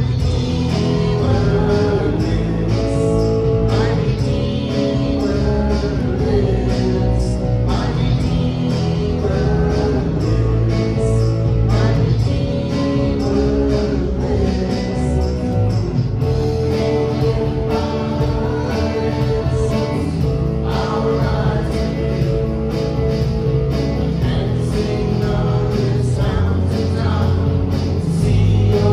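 Church worship music: a band with guitar accompanying singing.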